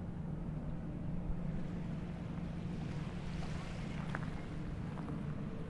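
Steady low engine drone, with a band of hiss that swells briefly past the middle.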